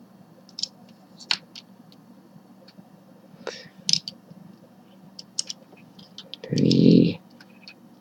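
Small plastic clicks and taps of a Rubik's brand 4x4 cube's pieces as orange centre pieces are pressed into place on the partly rebuilt cube, scattered irregularly. About six and a half seconds in comes a short, louder vocal sound lasting under a second.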